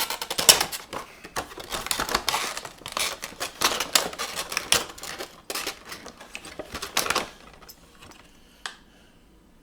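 Packaging of a boxed vinyl toy figure being opened by hand: a quick, busy run of clicks, crinkles and tearing for about seven seconds, then quieter with one last click near the end.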